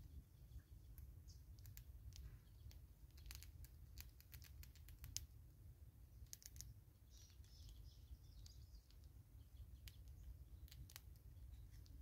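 Faint, irregular sharp clicks of Smith's bush squirrels gnawing and cracking seeds at a seed-block feeder, thickest in a run a few seconds in, with faint bird chirps in the background.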